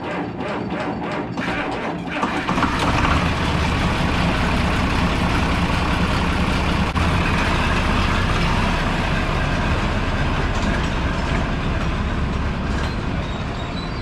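Cold tractor engine cranking on the starter with about three even compression beats a second, then catching on ether about two and a half seconds in and running steadily. It hesitated before starting, and the owner suspects the battery is getting weak.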